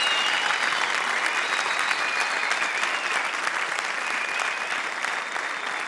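Live theatre audience applauding, a dense steady clapping that slowly dies down.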